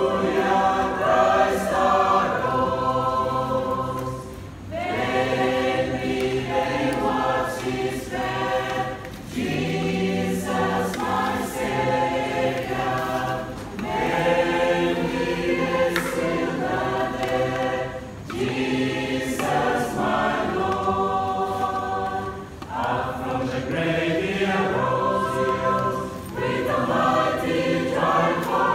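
Mixed choir of men's and women's voices singing a hymn together, in phrases a few seconds long with short breaks between them.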